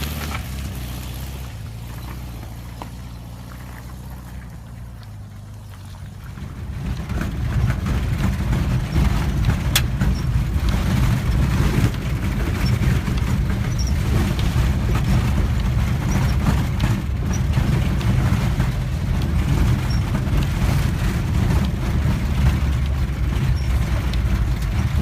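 VW bus engine with a steady low hum that fades over the first few seconds, then a loud, rough low rumble that sets in about six seconds in and stays. There is a single sharp click near the middle.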